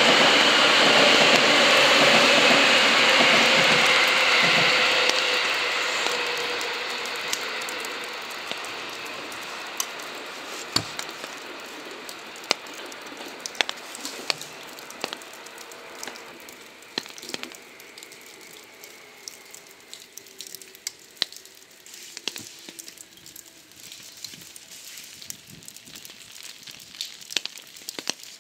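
Seibu 2000-series electric train running past and slowing as it arrives, a loud rumble of wheels and running gear with a faint whine falling in pitch, fading away over several seconds. After that, scattered small ticks and crackles over a quiet background.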